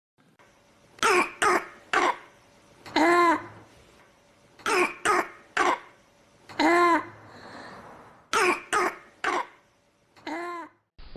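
A person coughing in fits: three short coughs and then a longer, pitched sound, the same pattern repeated three times about every three and a half seconds. It is a recorded example of one type of cough heard in a viral respiratory infection.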